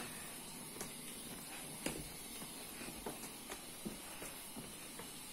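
Faint, scattered footsteps and scuffs of people walking slowly on a packed limestone cave floor, a few soft taps spread over the seconds, over a steady high hiss.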